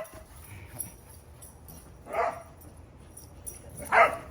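A dog giving two short play barks during pack play, one about two seconds in and another near the end.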